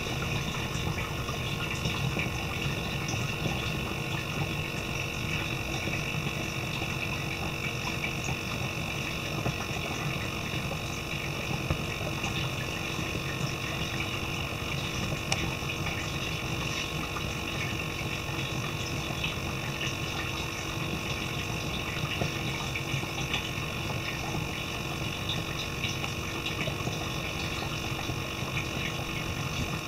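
A small pump running steadily with a continuous hum and rushing water, pushing water through a tube over the gills of an anesthetized fish. Faint scattered ticks sit on top of it.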